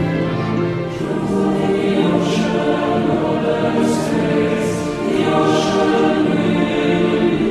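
Background music: a choir singing sustained, slow chords.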